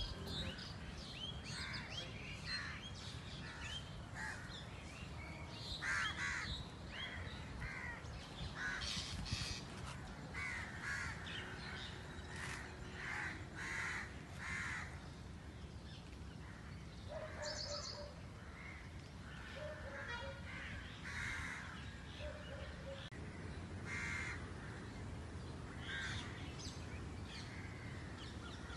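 Birds calling outdoors: many short, harsh calls, several a few seconds apart, throughout, over a steady low background rumble.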